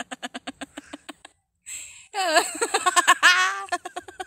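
People laughing: rapid giggling for about the first second, then after a short pause an in-breath and a stretch of high laughter that swoops up and down in pitch.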